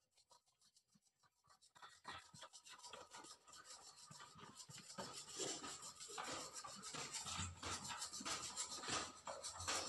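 A stirring utensil scraping and clicking against a metal mixing bowl as pancake batter is mixed. The strokes are sparse at first, then come thick and fast and grow louder from about two seconds in.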